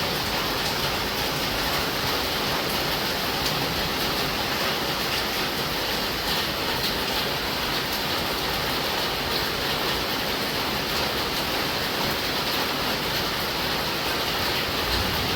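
Heavy rain falling steadily, an even hiss with occasional faint drip ticks.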